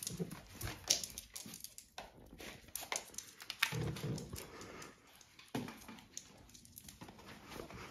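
Two small dogs scrambling and jumping up at a seated person's lap, their claws clicking and scratching on a hard floor and on her legs in many short, quick sounds.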